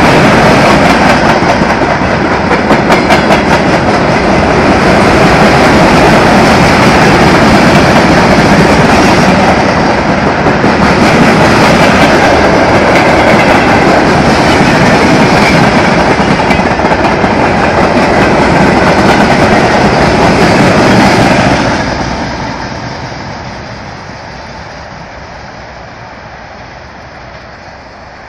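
Freight train of tank cars and boxcars rolling past close by, its wheels clattering steadily over the rail joints. About three-quarters of the way through the last wagon goes by, and the sound drops sharply and fades as the train moves away.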